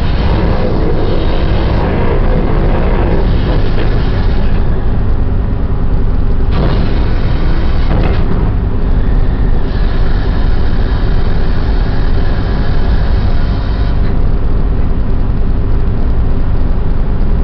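Steady, loud low rumble of a ship's deck machinery, with a hiss that swells and fades a few times over it.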